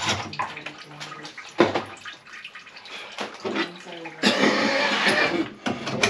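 Water sloshing and running in a plugged sink, coming and going unevenly, with a sharp knock about one and a half seconds in and a louder stretch of splashing near the end.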